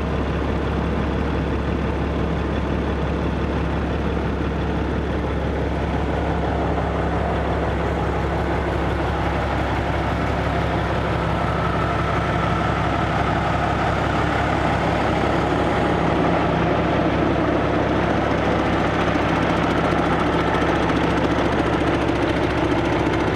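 Rebuilt Cummins ISX 2350 inline-six diesel engine running steadily on a test run stand during its first startup after the rebuild. It gets a little louder, with a faint high whine, from about halfway through.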